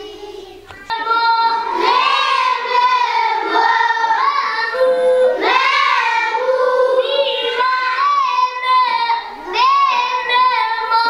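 A group of schoolchildren singing together in unison, starting abruptly about a second in, with long held notes.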